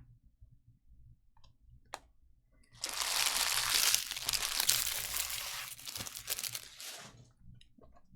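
Trading-card pack wrapper being torn open and crinkled: a loud crackling rustle starting about three seconds in and lasting about four seconds, after a single sharp click.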